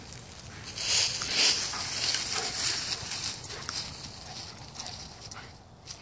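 Dry fallen leaves rustling and crunching as a dog runs and scrambles through them, in quick uneven bursts that are loudest in the first half and die away near the end.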